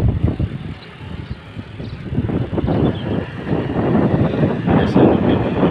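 A vehicle running on the road, with wind buffeting the microphone in uneven gusts.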